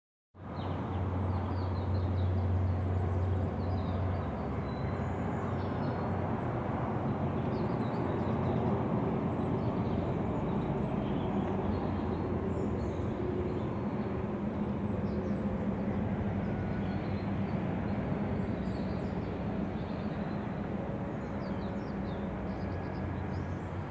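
Steady outdoor background rumble with a low hum whose pitch shifts after about four seconds, and faint high chirps of small birds scattered throughout.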